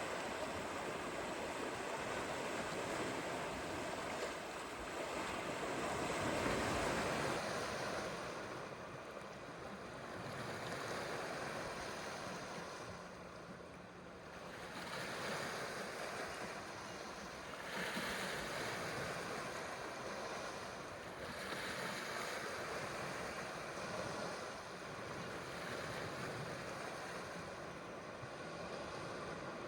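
Waves washing onto a shore, the rush of surf swelling and falling back every few seconds.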